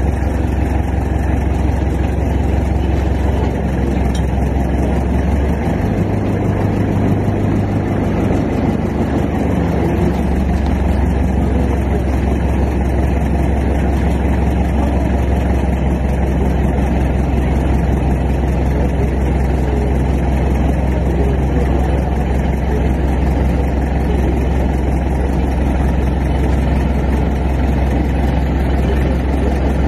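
Mobile crane's diesel engine running steadily at a low idle, speeding up briefly about six seconds in and settling back about four seconds later.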